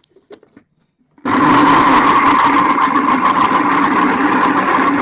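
Electric mixer-grinder switched on about a second in and running steadily and loudly, blending mango pulp, chilled milk, ice cubes and sugar into a shake. Before it starts, a few light clicks as the lid is fitted on the jar.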